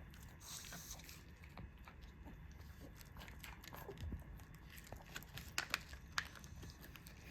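Dog chewing a crisp, crumbly treat: scattered small crunches, with a few sharper ones about five to six seconds in.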